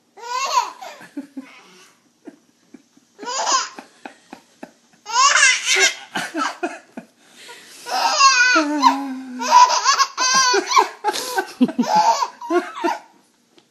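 A baby laughing in repeated bursts, the longest ones in the second half, with short pauses between.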